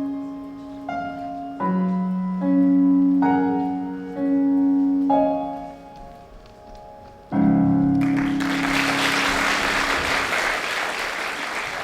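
Piano accompaniment playing the slow closing bars of a ballad, a few held chords struck one after another and ending on a final chord; the audience then breaks into applause for the last few seconds.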